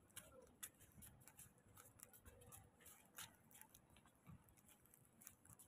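Near silence, with faint scattered clicks and ticks now and then.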